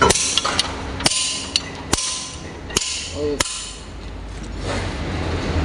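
Metal tools knocking against the flywheel of a Mitsubishi forklift engine as it is being removed: about seven sharp metallic knocks over the first three and a half seconds, two of them ringing briefly.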